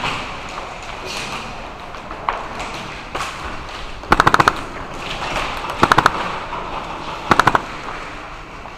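Airsoft guns firing three short rapid-fire bursts, each a quick string of sharp shots, the first about four seconds in and the others following at intervals of about a second and a half.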